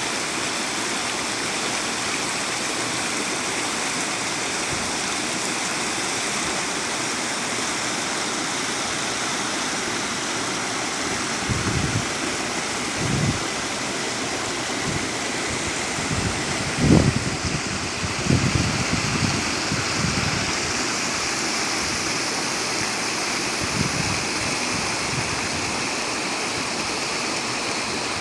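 Stream water rushing steadily over rocks, an even unbroken rush. A few short low thumps come about halfway through.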